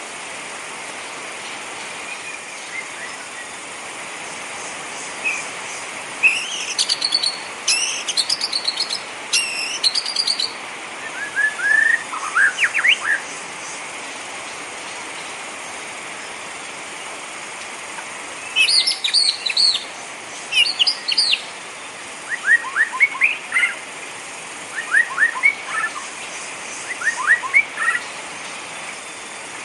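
Songbirds chirping in short bursts over a steady hiss of rain: two spells of high, quick chirps, each followed by lower notes that sweep quickly in pitch.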